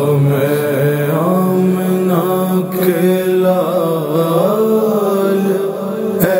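Male voice singing a naat, Urdu devotional verse, in long held notes that bend and ornament in pitch, with two short breaks.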